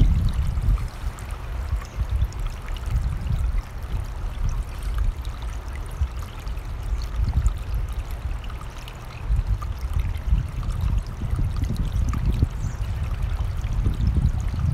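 Running mountain stream, a steady rush of water, under a gusting low rumble of wind on the microphone.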